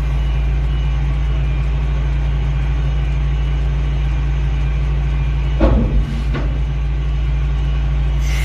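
Recovery truck's engine running steadily at a low idle while its loader crane works, with two or three short knocks a little before six seconds in.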